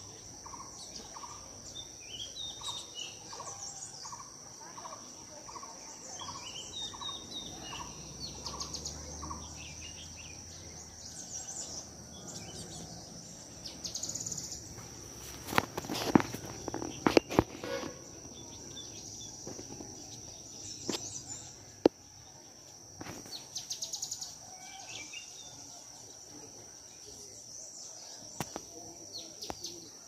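Forest ambience: a steady high insect drone with birds calling over it. One bird repeats a single note about one and a half times a second for the first ten seconds, and other birds chirp at intervals. A few loud knocks and rustles in the middle come from the phone being handled as it moves.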